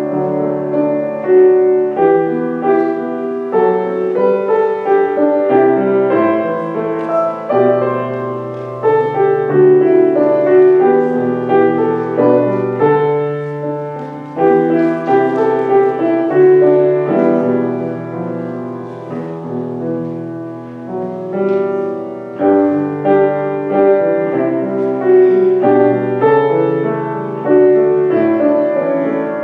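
Slow, quiet piano music: chords struck one after another and left to ring and fade.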